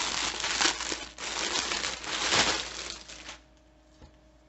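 Clear plastic poly bag crinkling and rustling as a folded cotton t-shirt is pulled out of it. The crinkling stops about three seconds in.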